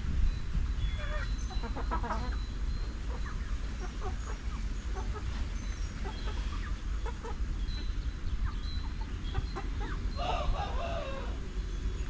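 Farm chickens clucking in short scattered calls, with a longer, louder call about ten seconds in, over a steady low rumble.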